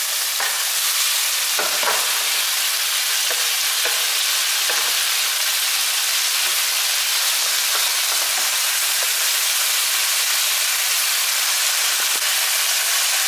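Sliced onions and chicken sizzling in a nonstick wok over a gas flame, with a steady hiss. They are being stirred with a plastic spatula that scrapes the pan now and then.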